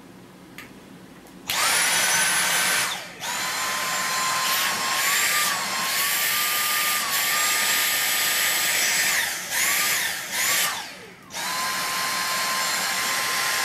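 Dyson V6 cordless stick vacuum's motor, handheld unit with no tool fitted, switched on and off with its trigger: a high-pitched whine that comes in about a second and a half in, cuts out briefly, runs for about six seconds with a slight wobble in pitch, gives two quick blips, then runs steadily again.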